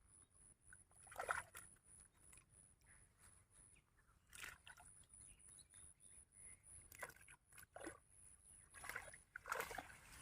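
Faint, irregular water splashing and sloshing as a fishing net is hauled through a pond, in short bursts, the loudest about a second in and again near the end.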